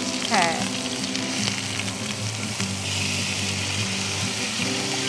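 Marinated chicken drumsticks sizzling steadily as they shallow-fry in oil in a nonstick frying pan, one side already browned.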